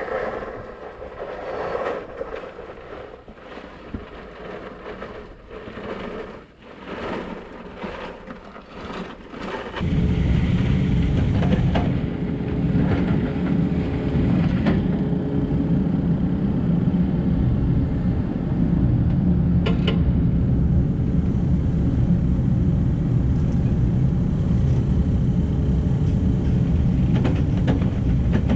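Scattered knocks and handling noises, then about ten seconds in a Cat 308 excavator's diesel engine comes in suddenly and runs steadily with a low rumble and a steady hum.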